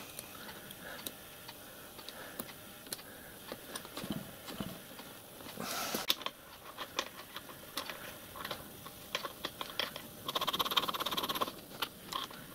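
Small metal clicks, taps and knocks of spindle and gear parts being handled and fitted on a small watchmaker's lathe headstock, with a fast rattling run of ticks about ten seconds in.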